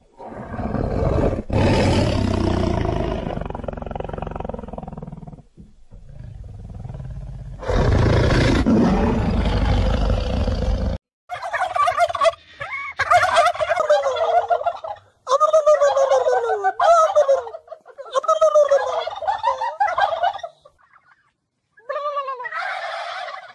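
A lion roars twice, each roar long and deep, lasting several seconds. About eleven seconds in, the sound cuts to wild turkeys gobbling in a run of about five short warbling bursts.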